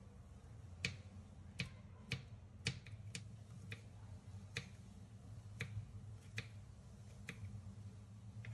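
Kitchen knife slicing carrot and baby corn on a wooden chopping board, each cut ending in a sharp tap of the blade on the board: about ten taps at an uneven pace. A steady low hum lies underneath.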